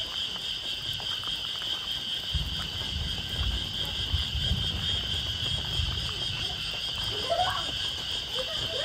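Steady high-pitched chorus of insects in the evening forest, with a low rumble for a few seconds in the middle. A rooster starts crowing near the end.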